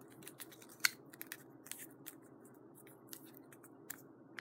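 Small plastic Shopkins blind pack being handled and worked open: soft scattered crackles and clicks of the packaging, with one sharper click a little under a second in. The packs are hard to open.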